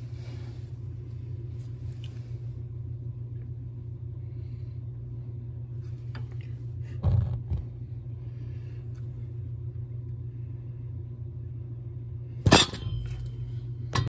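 A steady low mechanical hum, broken by a dull knock about seven seconds in and a sharper, louder knock near the end.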